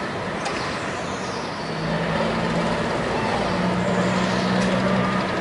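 An engine running with a steady low hum that sets in about two seconds in, over a constant noisy rush.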